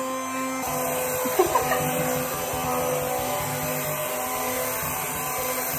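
Kenwood hand blender's electric motor running steadily, a continuous hum that brightens slightly about half a second in.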